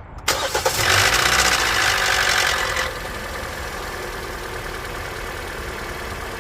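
Car engine starting about a quarter second in, running loud and high for a couple of seconds, then settling to a steady, quieter idle just after a fresh oil change; it sounds great.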